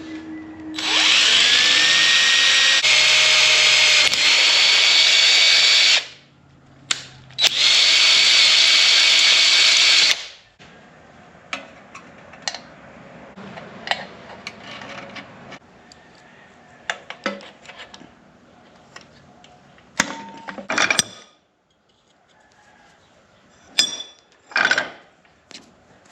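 Electric power tool spinning up with a rising whine and running steadily for about five seconds, then a short blip, then a second run of about three seconds. Scattered light clicks and knocks follow.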